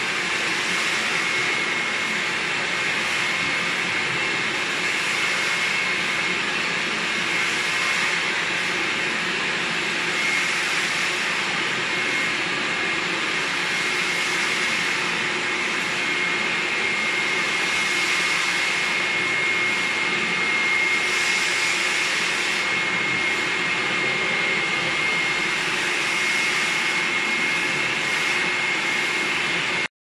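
Thomas washing vacuum cleaner running steadily with a high whine, its floor nozzle wet-cleaning a tiled floor. Its noise is very loud.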